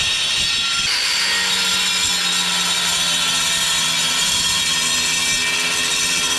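Bosch angle grinder running and cutting through clay roof tiles, a steady loud grinding hiss with the motor's whine underneath.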